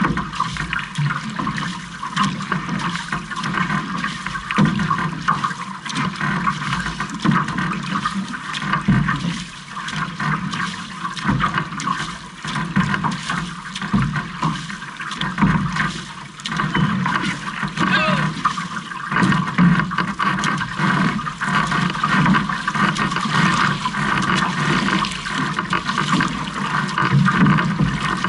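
Water rushing and splashing along the hull of an OC-6 outrigger canoe under paddle, surging and easing with the crew's paddle strokes.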